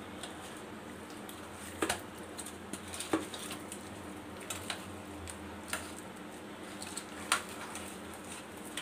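Hands mixing turmeric and salt into raw katla fish pieces in a stainless steel bowl: scattered light clicks and taps of fish and fingers against the metal bowl, over a faint steady hum.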